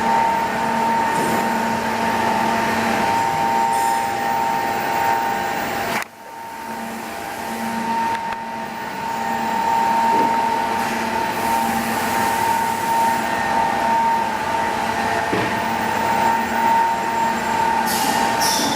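Automatic edge banding machine running, a steady mechanical hum with a held whine. The sound drops out abruptly about six seconds in and builds back up over the next two seconds. There is brief hissing near the end.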